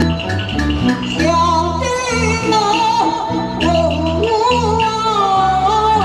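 Taiwanese opera (gezaixi) singing through a microphone over the troupe's band: a sung line with a wavering, ornamented pitch comes in about a second in, over a stepping bass line and a regular ticking percussion beat.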